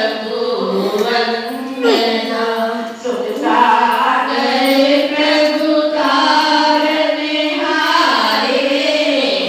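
Several voices singing a devotional hymn together, a bhajan at a satsang, one continuous melodic line.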